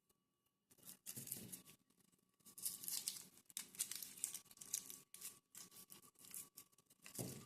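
Dry papery crinkling and tearing in irregular bursts as shallot skins are rubbed and peeled off by hand, with a soft thump near the end.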